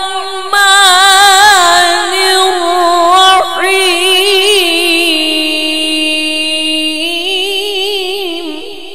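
A male qari chanting Quranic recitation (tilawat) in the melodic tajwid style. He draws out long, ornamented notes with a wavering pitch on the basmala, and the voice fades away near the end.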